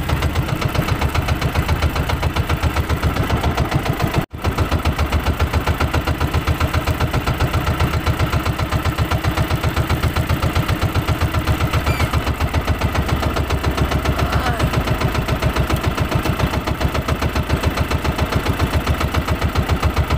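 Outrigger fishing boat's engine running steadily under way, a fast even pulsing beat with the thud of each firing strongest in the low end. The sound drops out for an instant about four seconds in.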